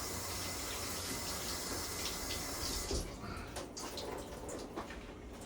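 Kitchen tap running while a pepper is rinsed under it, stopping about three seconds in, followed by scattered light clicks and knocks.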